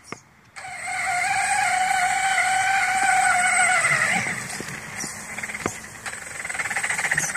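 Electric motor and gears of a Traxxas Slash RC truck whining at a steady pitch for about three and a half seconds while it drives, then dropping to a fainter, rougher buzz that swells again near the end.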